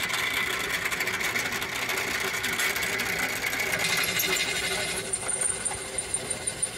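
Drill press running a 1/4-inch twist bit down into an aluminum wheel rim through a steel jig, a steady machine whir with the hiss of the cut. A faint high whine joins about five seconds in.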